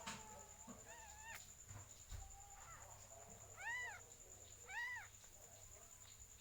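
A cat mewing three times: a short rising mew about a second in, then two brief arched mews about a second apart in the middle.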